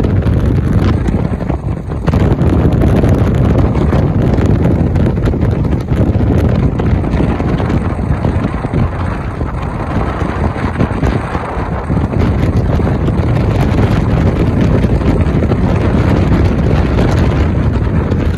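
Wind rushing over the microphone of a phone filming from a moving vehicle at highway speed, over a steady low rumble of road noise.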